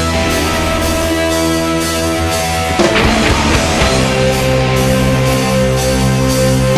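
Live progressive rock trio of electric guitar, bass and drums playing sustained, held chords, moving to a new chord about three seconds in.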